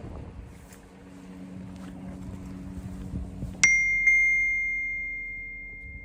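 A bell-like metallic ding, struck twice about half a second apart, the first strike loudest, then ringing on at one clear high pitch and slowly fading. Before it, a steady low hum with a little wind noise.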